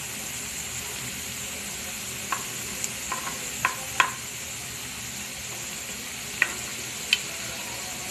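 Breaded donuts shallow-frying in oil in a frying pan, a steady sizzle. A spatula working among them adds a handful of sharp taps and clicks from about two to seven seconds in.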